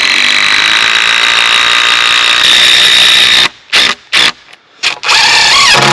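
Cordless power driver running lag bolts into the ramp's wooden framing. It makes a long steady run of about three and a half seconds, then a few short bursts, then a second long run that rises in pitch briefly near the end.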